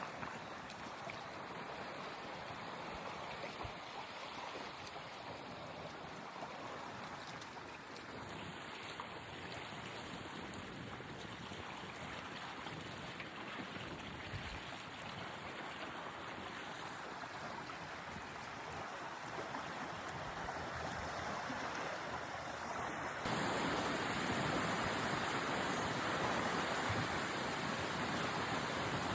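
Small lake waves lapping on a shore, with a light breeze. About 23 seconds in, the sound abruptly becomes louder and faster-moving water.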